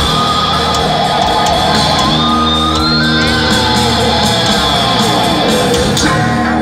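Loud amplified rock music through a stadium sound system, with held notes and a rising slide about two to three seconds in, heard from within a crowd that shouts along.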